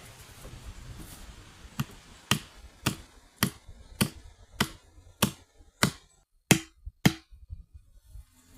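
A hand axe striking wood in a quick run of about ten sharp knocks, a little over half a second apart, the last two loudest.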